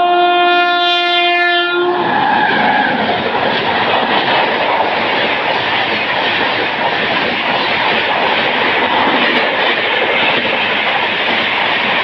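WAP7 electric locomotive's horn sounding one steady note that cuts off about two seconds in, then the loud, steady noise of the train running past.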